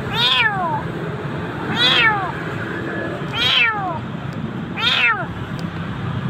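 A frightened stray kitten meowing four times, about one and a half seconds apart; each cry rises briefly, then falls away. These are repeated distress cries from a kitten that is hiding and afraid of being handled.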